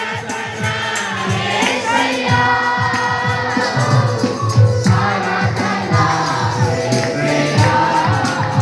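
A congregation of many voices singing together, with drums and jingling hand percussion keeping a steady beat.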